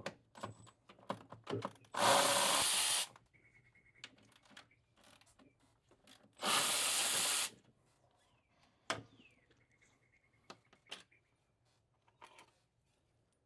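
Ratchet with a 13 mm socket working bolts loose, heard as two runs of about a second each, with small clicks and knocks of tool handling between them.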